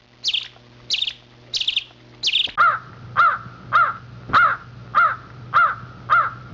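Birds calling in steady series. First comes a harsh, buzzy call repeated about every two-thirds of a second. From about two and a half seconds in, an arched, cawing call takes over, repeated a little under twice a second.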